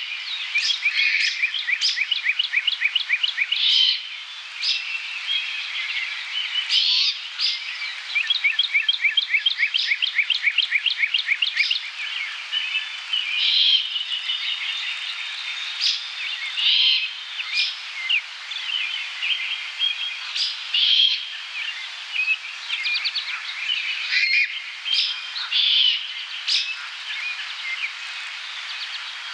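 Songbirds singing at dusk: a chorus of overlapping chirps and short calls, with two long trills of rapid repeated notes, one near the start and one from about eight to twelve seconds in.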